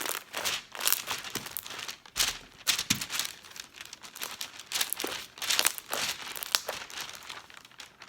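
Homemade fluffy slime made with shaving cream, squeezed and stretched by hand, giving irregular sticky crackling and popping.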